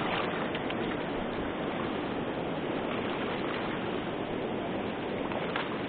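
Steady rush of river water pouring over a rock ledge.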